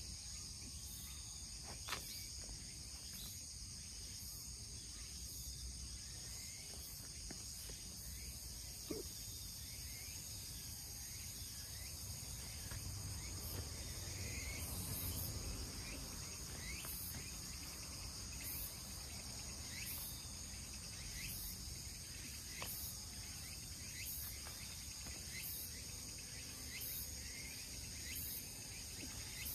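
Steady high-pitched chorus of insects, with a faint pulse repeating a little more than once a second. There are two brief clicks, about two seconds in and again near nine seconds.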